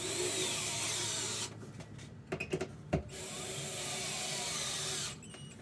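Power drill driving sheetrock screws through drywall into a wooden backing board, in two runs of about one and a half and two seconds, with a few short knocks between them.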